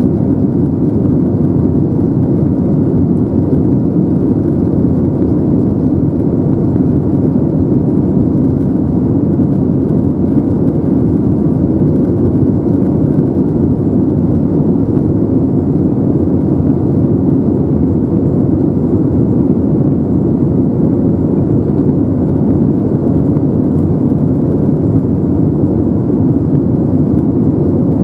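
Steady cabin noise of an Airbus A321neo in flight, heard from a window seat: the drone of its Pratt & Whitney PW1100G geared turbofans mixed with the rush of air along the fuselage, with a faint steady tone over it.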